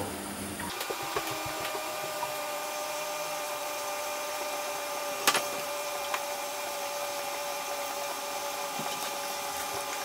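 Zanussi ZDT41 dishwasher running its wash cycle: a steady pump hum with several held tones and a single sharp click about five seconds in. It is running normally, no longer tripping the RCD, now that its faulty water heater has been replaced.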